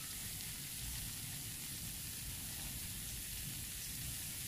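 Faint, steady sizzling hiss of rice-flour surabi batter cooking in a mini martabak mold over a low gas flame.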